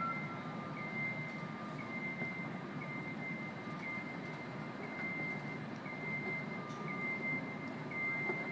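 Travel alarm of a small self-propelled lift platform beeping as it creeps along: one steady-pitched beep about every second, with a fainter, lower beep from another alarm now and then, over a constant low city traffic hum.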